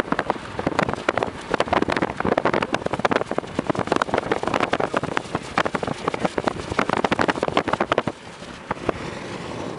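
Loud, irregular rattling and buffeting noise from a moving vehicle, with rapid knocks running together; it eases to a steadier, quieter noise about eight seconds in.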